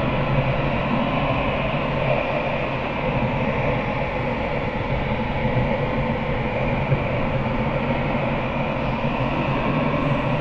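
Underwater ambience: a steady, even rush of water noise with a faint low hum beneath it.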